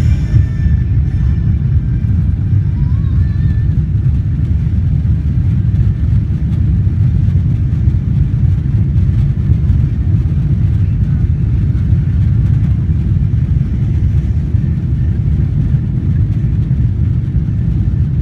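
Steady low roar of a jet airliner's engines and rushing air during takeoff, even and unchanging throughout.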